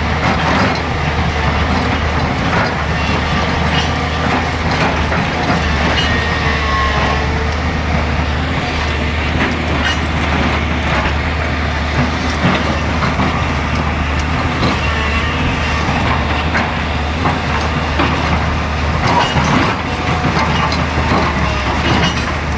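Excavator's diesel engine running steadily under load, with scattered knocks and rattling as stones are moved and dropped.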